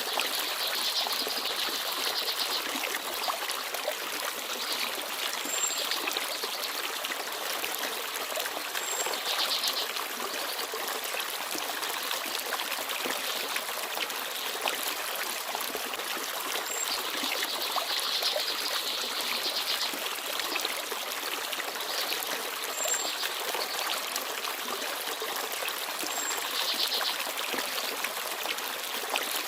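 Small forest stream babbling and trickling steadily, with small birds chirping: several short high trills and a few brief high whistled notes.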